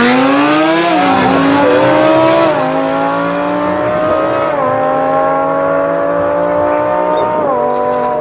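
Audi R8 V10 and Lamborghini Aventador V12 accelerating flat out from a standing start in a drag race. The engine note climbs and drops back with four quick upshifts, about one, two and a half, four and a half and seven and a half seconds in, and grows slightly fainter as the cars pull away.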